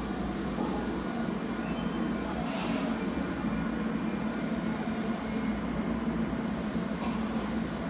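Tobu 100 series Spacia electric limited express at the platform, a steady hum and low rumble of the train that does not change.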